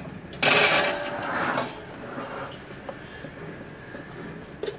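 Wire grill rack scraping and rattling as it is set onto an electric grill's body, a loud scrape of about a second that fades, then a couple of light clicks near the end.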